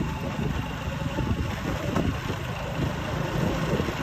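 Small motorcycle engine running steadily at low speed, heard from the rider's seat as a low rumble.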